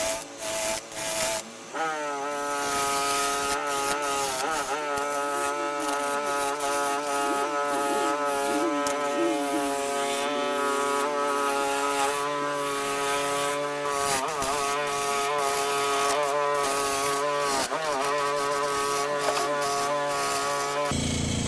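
Small electric power tool motor running at a steady whine while carving wood, with scratchy contact noise; its pitch sags briefly a few times as it is pressed into the work. It starts after a few short bursts and stops just before the end.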